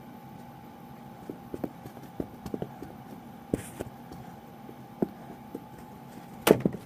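Mini knee hockey stick knocking a small ball around on the floor: irregular light taps and clicks, with a louder knock near the end. A faint steady hum runs underneath.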